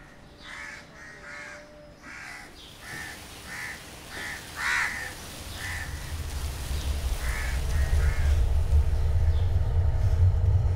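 Crows cawing: about a dozen short, separate caws in the first eight seconds. A low rumble builds underneath from about halfway through.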